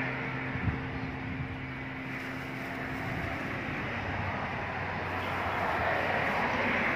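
Steady hum of a passing motor vehicle's engine over a rushing street background. The hum fades out about halfway through, and there is one short click near the start.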